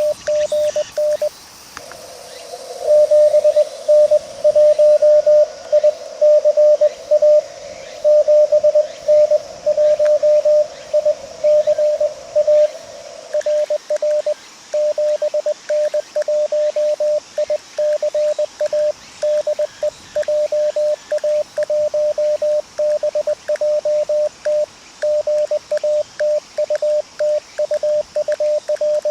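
Morse code (CW) from an amateur radio transceiver: a steady pitched tone keyed on and off in dots and dashes. For about the first half a louder signal comes through over a narrow band of receiver hiss, then the keying goes on without the hiss, in the manner of the transceiver's own sidetone.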